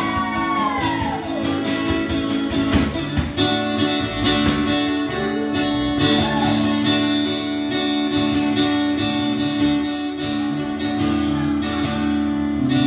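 Acoustic guitar strumming chords together with an electric guitar. A sung, gliding voice trails off in the first second or so.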